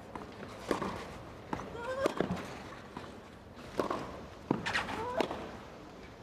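Tennis rally on a clay court: sharp racket-on-ball strikes and bounces repeating every second or less, some followed by a player's short rising-pitched grunt.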